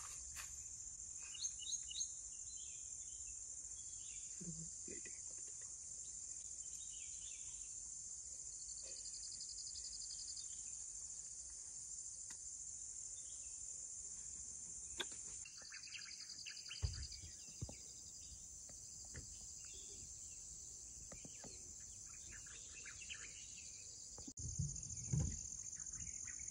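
Steady high-pitched insect chorus, with faint scattered chirps over it and a brief pulsing call twice.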